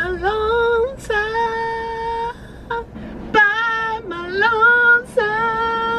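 A woman singing alone in long, drawn-out held notes, sliding up and down between them, in several phrases with short breaks.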